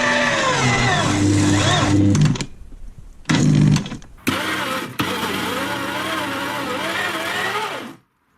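Electric meat grinder motor whining, its pitch sagging and wavering as it bogs under the load of items being crushed. The sound is spliced from several short clips, cutting off and restarting abruptly.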